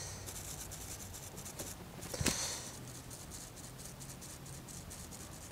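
Thin plastic film crinkling and rustling under fingers as it is pressed and smoothed over water, in small scattered crackles with one louder crinkle about two seconds in.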